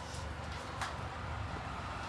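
Steady low background rumble with a single light click a little under a second in.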